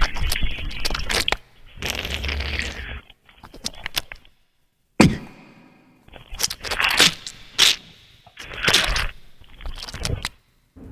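A string of short scraping, cracking and crunching sound effects in bursts of about a second, broken by brief silences, with a sharp hit about five seconds in that dies away.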